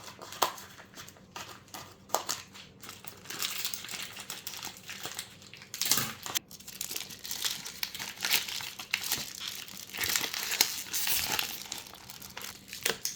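Packaging crinkling and rustling as it is handled and pulled open, with many short sharp crackles, busiest through the middle.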